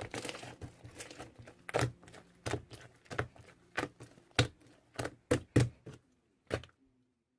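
Slime being squeezed and pressed by hand, giving a series of sharp clicks and pops about once or twice a second that stop near the end.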